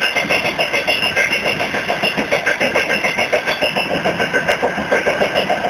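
Freight train under way: the rumble and clatter of the wagons' wheels on the rails, with a steady rapid pulsing of about five beats a second.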